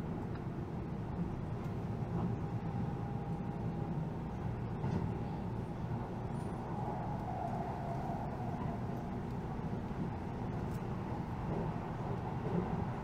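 Keihan electric train running at speed, heard from inside the passenger car: a steady rumble of wheels on rail and car body, with a faint higher whine coming and going.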